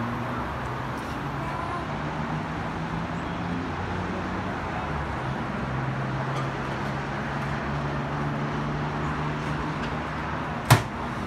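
Steady background traffic noise with a low hum. A single sharp knock near the end.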